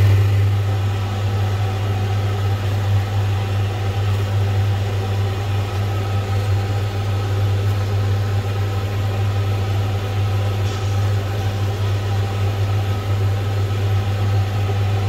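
A steady low electric hum from kitchen equipment, over a pan of bamboo-shoot and pork-belly stew simmering on the stove and being stirred with a spatula.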